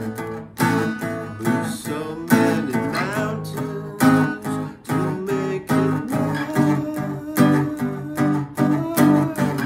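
Small-bodied acoustic guitar played by hand, notes and chords plucked and strummed in a steady rhythm with the strings ringing between strokes.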